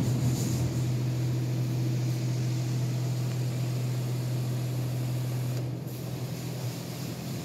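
Touch-free car wash spraying water over the car, heard from inside the cabin: a steady rush of spray over a low hum. Both ease off about six seconds in.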